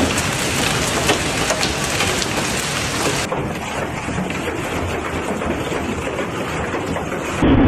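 Heavy storm rain pouring down, dense and steady, with many sharp ticks of drops striking hard surfaces. About three seconds in it cuts to another stretch of steady downpour with less crispness, and just before the end a sudden louder, lower rumbling begins.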